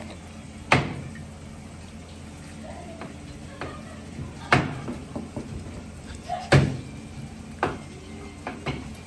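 Heavy kitchen knife chopping down onto a cutting board: three hard strikes a few seconds apart, each ringing briefly, then lighter knocks near the end.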